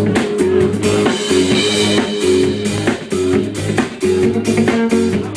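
Live rock band playing: drum kit, electric guitar and keyboards over a repeating riff with a steady beat.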